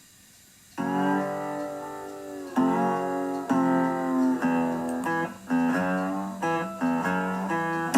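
Guitar music: strummed chords that start about a second in and change every second or so.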